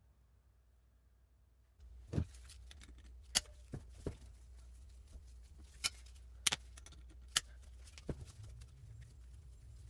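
Sharp metal clicks and clinks, about eight in all, starting some two seconds in, as a valve spring compressor is worked on a cast-iron Mini A-series 1275 cylinder head to free the valve springs and collets.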